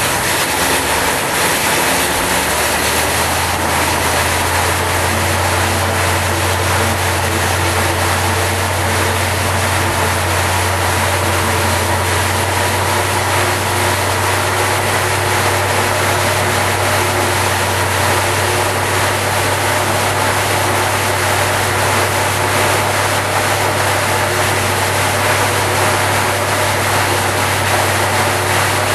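Rebuilt 1927 Cadillac 314 V8 engine running steadily. Its low hum firms up about three seconds in, then holds even.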